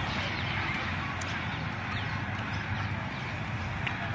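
Steady outdoor ambience beside a jammed highway: a low rumble of stopped traffic and wind on the microphone, with a few faint high bird chirps.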